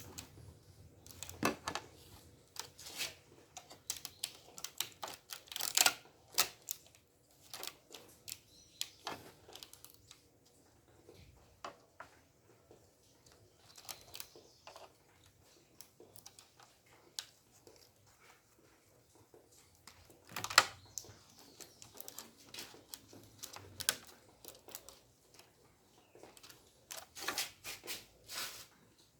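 Irregular clicks, taps and small knocks of hand work with tools and materials, with a few sharper knocks and a quick cluster of taps near the end.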